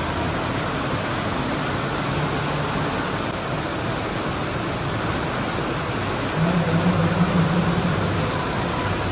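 Steady hiss of noise with a faint low hum that grows a little louder about six and a half seconds in.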